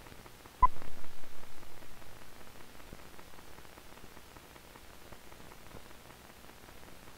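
A single short, sharp beep from a film leader's countdown, the sync tone marking the start of the picture. After it comes the steady hiss of an old optical film soundtrack, with faint scattered crackles.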